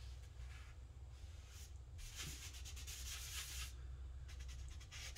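A cloth rag rubbing wood stain into a carved, burned wooden sign: a scratchy swishing that comes in uneven strokes, the longest lasting nearly two seconds about two seconds in. A steady low hum runs underneath.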